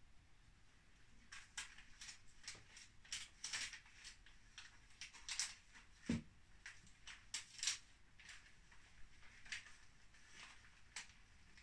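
Faint handling noise: scattered small rustles and clicks, with one dull thump about six seconds in.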